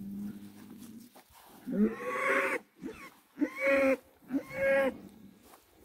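Cattle mooing: a low, steady moo at the start, then three louder, higher bawling calls, the last two short and close together.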